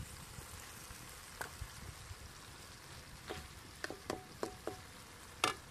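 Tomato-and-egg omelette sizzling in a frying pan, with sharp clicks and knocks against the pan from a metal ladle stirring, several in the second half and the loudest near the end.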